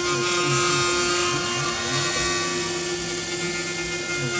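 Desktop CNC router milling a pocket into a solid wood block: the spindle runs with a steady whine while the end mill cuts with a dense hiss. Beneath it the axis motors hum in a tone that glides down and back up about once a second as the cutter traces back and forth.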